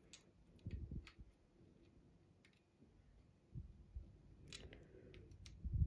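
Fingers handling a bobbin on a Pfaff sewing machine's bobbin winder: faint, irregular small clicks and soft knocks as the bobbin is seated and the thread wound on.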